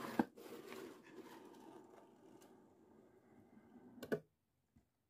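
Cardboard mailer box being opened by hand: a sharp tap, then a long faint scraping and rustling of cardboard that fades out, and a few quick clicks near the end.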